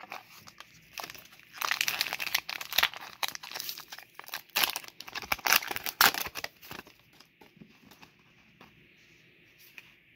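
Foil Pokémon booster pack wrapper crinkling and tearing as it is taken from the box and opened, busiest from about a second and a half to six and a half seconds in. After that, only faint rustles of the cards being handled.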